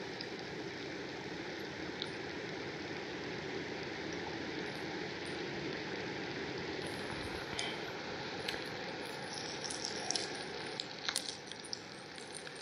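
Brown trout frying gently in a pan over a Jetboil gas burner on low heat: a steady sizzle, with a few sharp pops and clicks in the second half.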